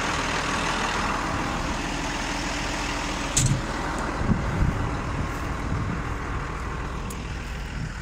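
Tractor engine idling steadily, under a constant rush of outdoor noise, with a sharp knock about three and a half seconds in and a few low thumps just after.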